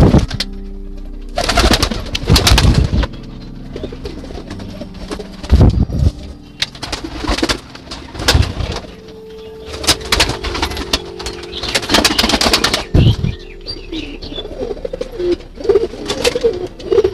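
Domestic pigeons cooing in a loft, with several loud, noisy flurries about a second long, over soft ambient background music.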